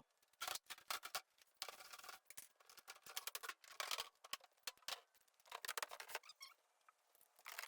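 Faint scattered light clicks and rustles from tool containers and gear being handled.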